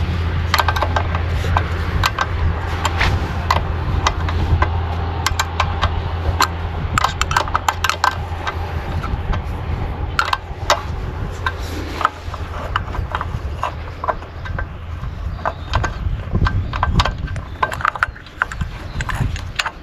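Irregular metal clicks and clinks of tools and small parts while a lawnmower carburetor is taken apart by hand. A steady low hum underneath fades away over the first half.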